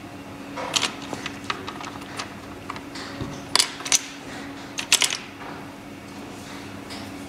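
Sharp clicks and taps of small hard parts being handled, in three short clusters, over a steady low hum.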